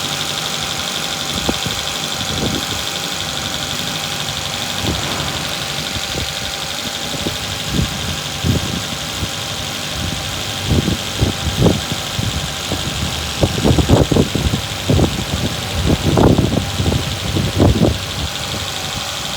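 Maruti Suzuki Swift engine idling with a misfire, running unevenly with irregular thumps that come more often in the second half, and vibrating heavily; the mechanic puts the misfire down to the spark plugs.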